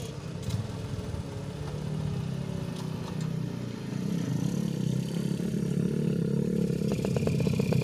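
Small underbone motorcycle engine running as the bike, laden with logs, rides up and nears, growing steadily louder.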